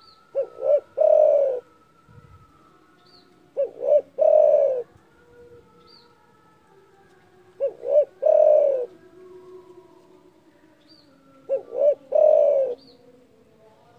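Spotted dove (derkuku) cooing: four phrases about four seconds apart, each two short notes followed by one longer coo.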